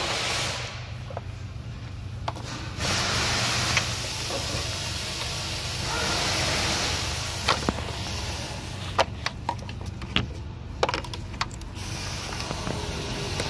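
Handling noise from a handheld phone being carried about: rustling and shifting noise with scattered sharp clicks and knocks, the clicks bunched in the second half, over a faint steady low hum.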